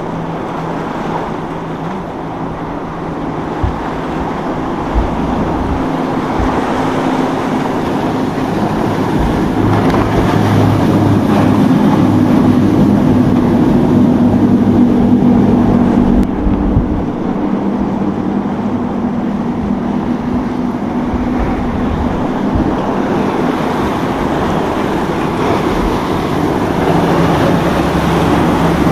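Boat engines running through an inlet, a steady engine drone over rushing water and wind, growing louder toward the middle and changing abruptly about halfway through.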